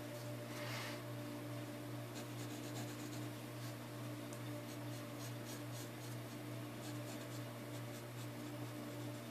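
Pencil scratching on paper as lines are drawn: one longer stroke about a second in, then many short quick strokes. A steady low hum runs underneath.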